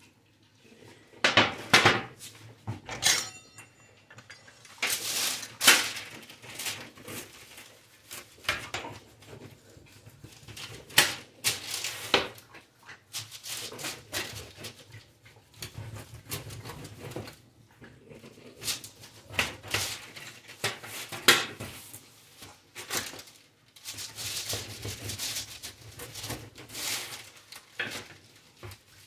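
Irregular clatter and knocks of kitchen handling, with dishes and cutlery clinking, some strokes ringing briefly.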